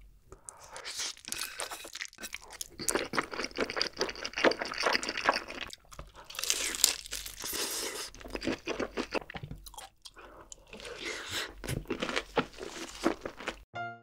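Close-miked eating sounds: crunchy bites into a crispy-coated Nashville-style fried chicken leg and wet chewing of mouthfuls of creamy buldak noodles, in several bursts with short pauses between. The eating sounds cut off abruptly near the end.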